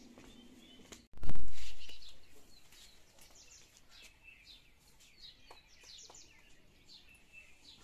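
Small birds chirping in many short, high calls. About a second in, a sudden loud low rush of noise breaks in and dies away over about a second.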